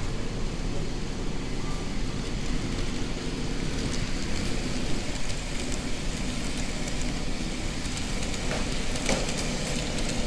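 N-gauge model of a 781 series electric train running along layout track: a steady rumble of its motor and wheels on the rails, with a few light clicks near the end.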